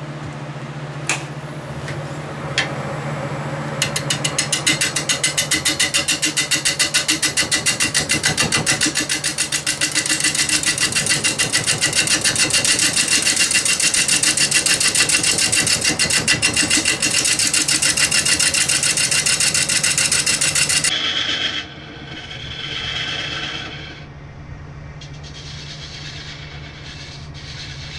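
Bowl gouge roughing down an out-of-round log blank spinning at about 420 RPM on a Reeves drive wood lathe: an interrupted cut that strikes the wood in a rapid, even rhythm over the steady hum of the lathe motor. The heavy cutting stops about three-quarters of the way through, leaving the lathe running with lighter tool noise.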